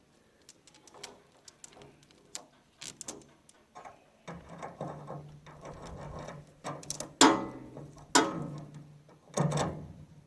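Steel roller chain clinking and rattling as it is handled and fed onto a baler's sprockets, with a busier run of clatter partway through and three louder metal clanks near the end. A low steady hum comes in partway through.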